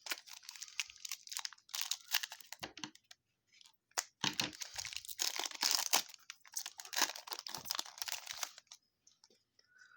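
A trading-card pack wrapper being torn open and crinkled by hand, in two stretches of crackling with a short pause just after the three-second mark.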